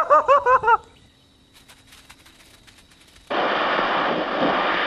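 A high-pitched voice repeats "goodbye" for about a second. Then come a few faint clicks, and about three seconds in a loud, even static hiss from blank videotape starts and cuts off abruptly at the end.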